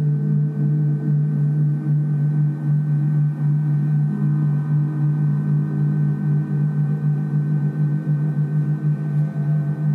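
Gongs sounding a sustained drone: a steady low hum with several higher overtones above it, the loudness wavering throughout and no separate strikes heard. Near the end a new set of higher tones comes in.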